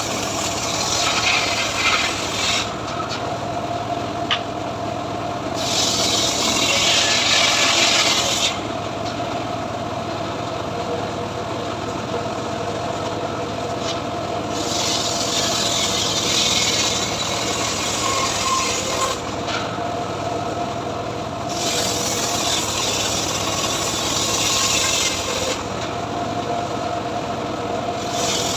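Homemade engine-driven log saw (gergaji srekel) running steadily while cutting through mahogany wood, with a harsh rasping cutting noise that swells and fades every few seconds.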